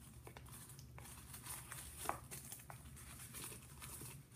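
Faint rustling and crinkling of a small jewelry box's packaging and paper wrapping being opened and handled, with a few light clicks.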